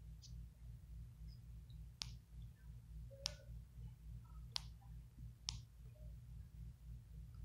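Four sharp clicks spaced about a second apart, starting about two seconds in, over a faint low steady hum.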